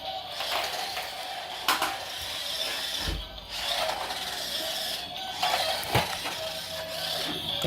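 Remote-control robot toy car running: a steady electric whir with plastic clicks and knocks, the sharpest about 1.7, 3 and 6 seconds in.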